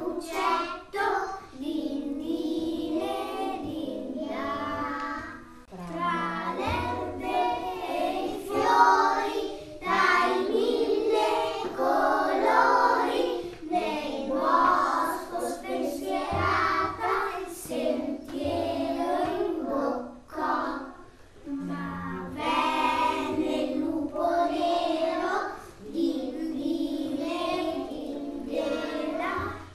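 A group of young children singing a song together in Italian, phrase after phrase with short breaks between them.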